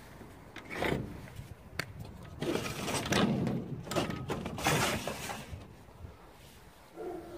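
An aluminium-framed greenhouse door being slid and handled: a run of scraping, rattling swishes with knocks and a sharp click about two seconds in.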